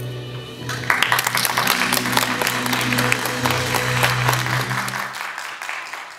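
Audience applauding, starting about a second in and fading toward the end, over soft background music holding a low note that stops about five seconds in.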